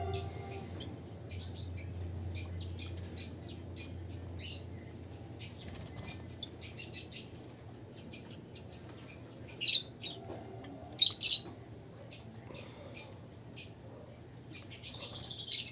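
Lovebirds giving short, sharp, high chirps in irregular runs, with louder clusters about ten and eleven seconds in and again near the end.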